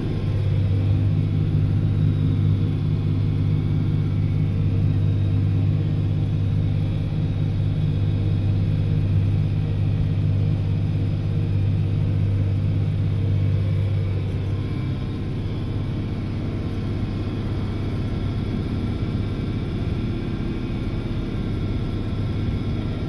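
John Deere 4055 tractor's six-cylinder diesel running steadily under load, driving a New Holland pull-type forage chopper that picks up and chops wheat straw, heard from inside the tractor cab as a steady low drone. The drone eases a little about two-thirds of the way through.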